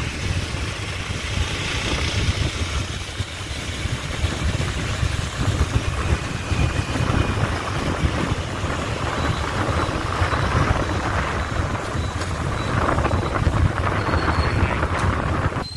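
A motorbike being ridden along a city street: the engine and road noise make a steady low rumble with a hiss above it.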